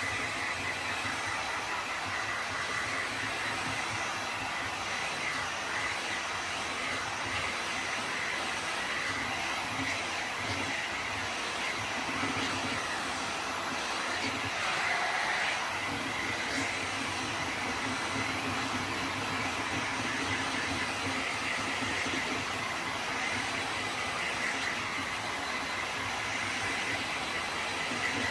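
Electric heat gun blowing steadily, a fan whine over a rush of hot air, used to dry fresh primer on a steel wheel.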